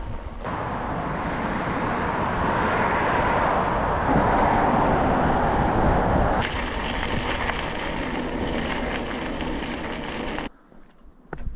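Wind rushing and buffeting against the microphone, with a heavy low rumble, cutting off abruptly about ten and a half seconds in. A few light clicks follow near the end.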